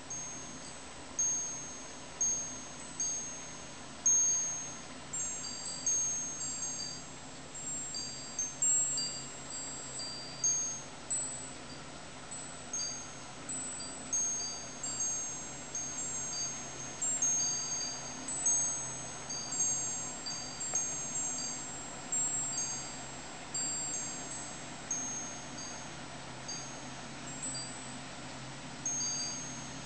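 Wind chimes jingling: high, bell-like tones struck at irregular moments, several a second at times, each one ringing and fading away.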